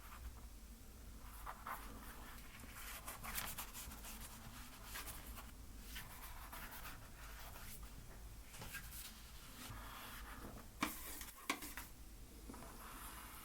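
Paint being worked onto a canvas: irregular scratchy rubbing strokes of a painting tool on the surface, with two sharp taps a little past two-thirds of the way through.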